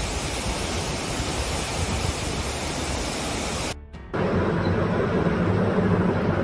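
Steady rush of heavy rain and storm noise. It cuts out briefly about four seconds in, then comes back louder as heavy wind-driven rain with wind rumbling on the microphone.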